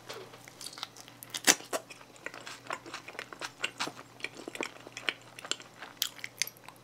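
Close-miked biting into a slice of pizza and chewing it: a run of short, crisp crunches and wet mouth clicks, with one loud crunch about one and a half seconds in.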